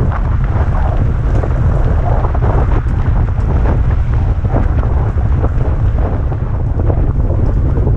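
Heavy wind buffeting on the microphone of a moving electric moped, with a dense, irregular crackle of small knocks from the tyres running over loose gravel.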